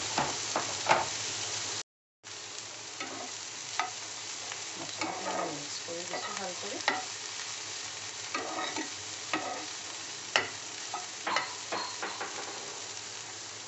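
Corn kernels, tomato and spice frying in butter in a pan, with a steady sizzle and irregular clicks and scrapes of a spoon stirring against the pan. The sound cuts out for a moment about two seconds in, then the sizzle and stirring carry on a little quieter.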